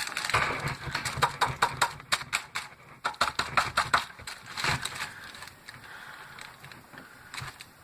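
Rapid clicking and crackling of a cut-open battery being picked and pried apart by hand and knife. The clicks come thick for about four seconds, then thin out to a few soft sounds.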